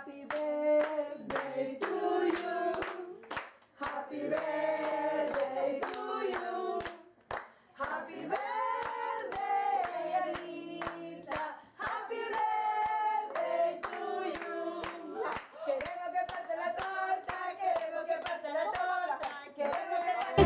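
A small group of people singing a birthday song together, clapping in time at about two to three claps a second, the song falling silent briefly between phrases.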